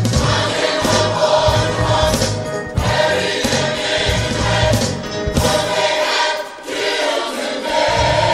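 Gospel choir singing with instrumental accompaniment and a steady beat; the bass drops out briefly about three-quarters of the way through.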